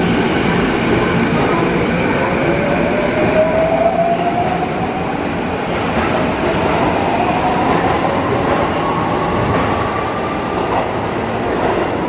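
Sanyo 6000 series electric train pulling out of an underground station. Its traction motors give a whine that climbs steadily in pitch for several seconds as it gathers speed, over a constant running rumble.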